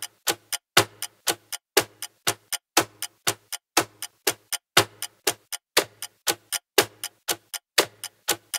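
Countdown timer sound effect: a clock ticking steadily, about four ticks a second.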